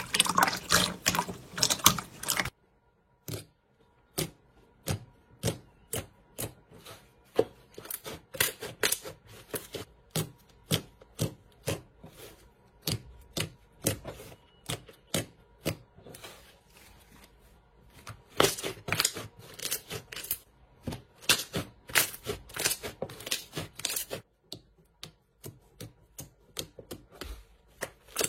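Running water stops about two and a half seconds in, followed by many short, sharp, irregular clicks and taps, sparse at first and coming thick and fast for several seconds near the end.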